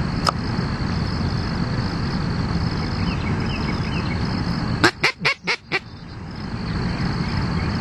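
Teal duck call blown in a quick run of about five short, sharp quacks about five seconds in, imitating a hen blue-winged teal to draw in a drake. A steady low rumble runs underneath.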